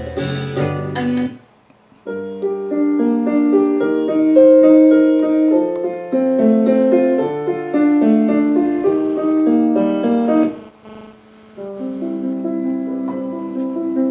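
Music playback: a track cuts off about a second in, and after a short gap solo piano music plays, with a brief pause about ten seconds in.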